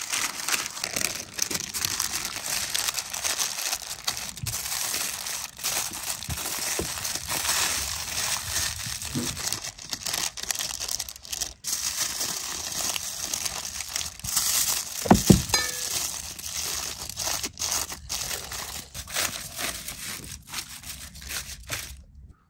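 Aluminium foil crinkling and crackling as it is folded and crimped by hand around a whole fish, with one louder low bump about two-thirds of the way through.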